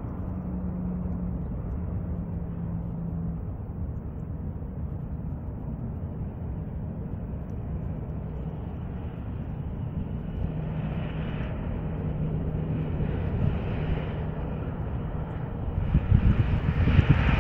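Steady distant rumble from an airport apron during an Airbus A380's pushback by a tow tug, with a faint steady hum. Wind buffets the microphone in the last second or so.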